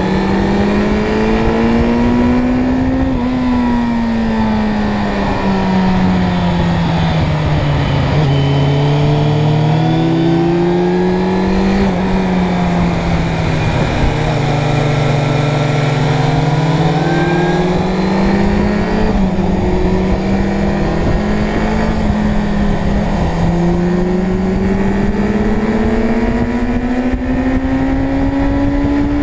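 Suzuki Bandit 600's inline-four engine under way on the road. Its pitch climbs as the bike accelerates and sinks as it slows, with a few sudden dips in pitch, over rough low wind and road noise.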